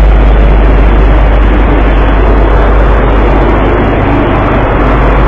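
A ship's engine droning steadily with a low hum under a loud, even rushing of wind on the phone's microphone.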